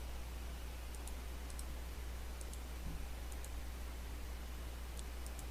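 Faint computer mouse clicks, a handful of short ticks scattered through, over a steady low electrical hum and hiss.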